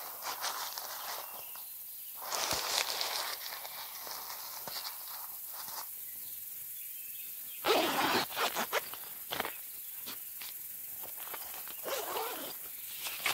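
Pop-up privacy tent's fabric rustling and crinkling as the door flap is rolled up by hand and strapped, mainly in two bursts, about two seconds in and about eight seconds in.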